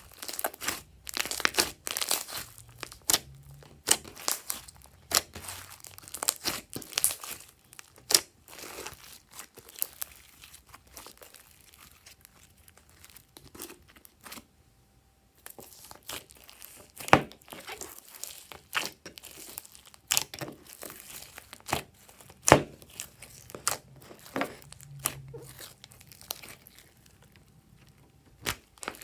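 Glossy slime being squished, stretched and mixed by hand, giving irregular sharp clicks and crackly pops, bunched in clusters with a brief pause about halfway through.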